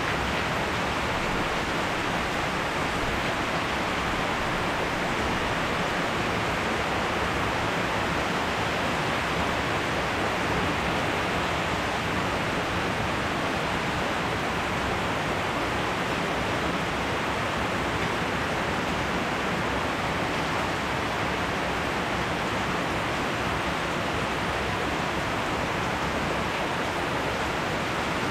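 Steady rain falling, an even hiss that holds at one level throughout, with no thunder.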